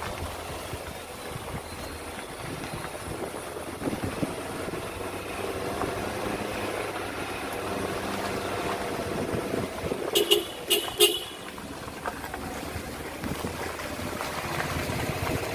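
Steady motor vehicle engine and road noise. About ten seconds in, a vehicle horn gives three short toots in quick succession.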